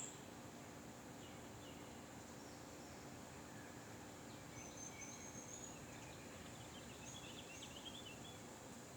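Faint outdoor ambience: a steady background hiss with a few high, distant bird chirps from about halfway through to near the end.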